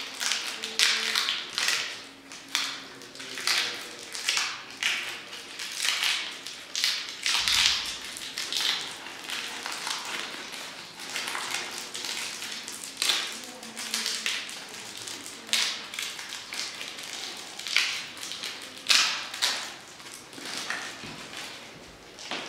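Clear plastic being crinkled and crushed in gloved hands: an irregular run of sharp crackles, a few each second.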